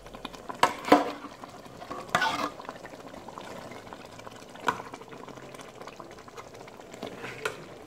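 Metal spoon stirring a thick, simmering fumbwa stew in a pot over low cooking sizzle, with a few sharp clicks and scrapes of the spoon scattered through.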